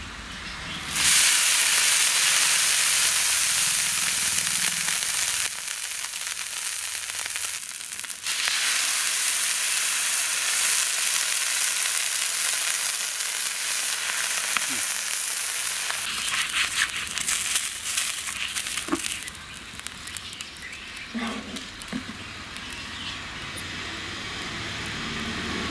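Water poured onto a hot metal griddle hissing and sizzling loudly as it boils off in steam, starting suddenly about a second in. After about fifteen seconds it dies down to scattered crackling and spitting.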